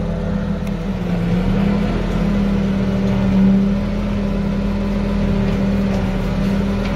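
SAME Laser 150 tractor's diesel engine running, heard from inside the cab. Its note dips about a second in, then rises and swells around the middle before settling back to a steady run.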